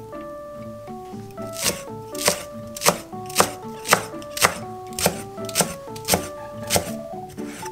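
A broad cleaver-style kitchen knife chopping green onion into diagonal slices on an end-grain wooden cutting board, knocking about twice a second from about a second and a half in. Light background music plays underneath.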